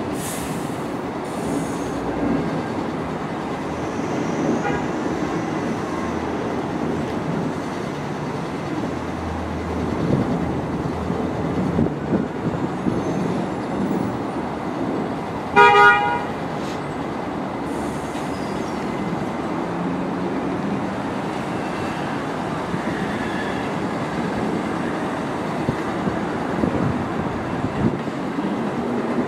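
One short toot of a Bombardier R62A subway train's horn about halfway through, a single note, over a steady low rumble.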